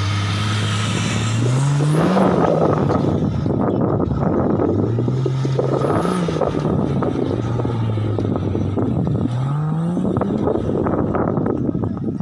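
Off-road 4x4 engine revving hard three times, its pitch climbing and falling with each surge, over a dense crackling noise.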